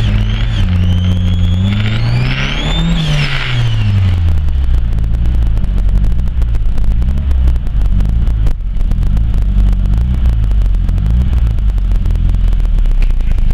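Turbocharged car engine revving, its pitch climbing and falling again and again, with a high whistle rising alongside the rev about two to three seconds in.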